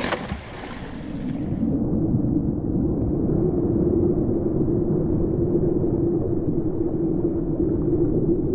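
A splash as a dive float lands in the sea, then a steady, muffled low rumble of small waves washing over rocks at the waterline.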